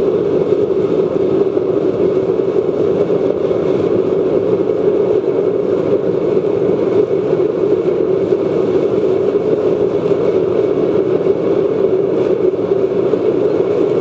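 Waste oil burner running on forced air from a 12-volt bilge blower: a steady, loud rush of flame and blown air, with an even whir.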